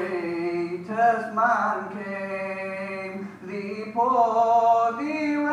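A male voice singing a nasheed in long, drawn-out melismatic notes that bend in pitch, over a steady low drone.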